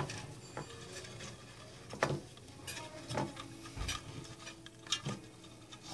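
Light handling noise of a wooden beehive frame being wired on a workbench: faint scrapes and a few small clicks and knocks as the frame wire is pulled through the frame's eyelet holes, with one dull thump about four seconds in.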